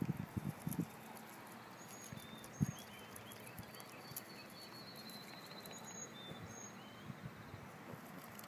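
Canada goose pecking and plucking at grass close by: soft short pecks, several in the first second and one about two and a half seconds in. Faint chirps of small birds in the background.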